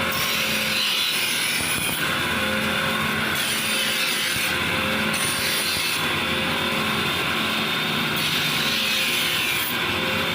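Electric grinder running steadily against steel, with the high hiss of the grinding coming and going every second or two as the work is pressed on and eased off.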